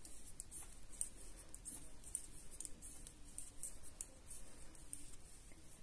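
Knitting needles clicking faintly and irregularly as stitches are worked.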